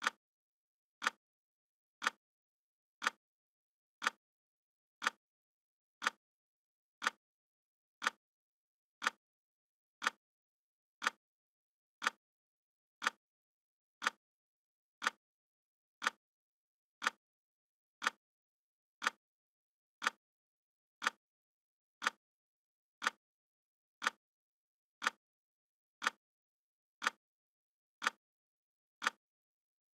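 Clock ticking sound effect: one short, sharp tick every second, evenly paced, with silence between ticks, marking the seconds of a countdown timer.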